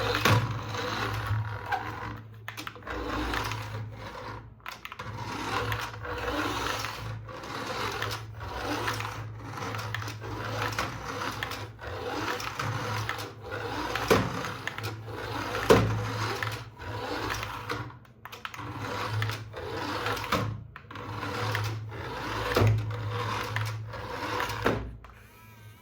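Small electric motor and plastic gears of a remote-control toy whirring in short stop-start bursts, with a steady low hum underneath and a few sharp clicks.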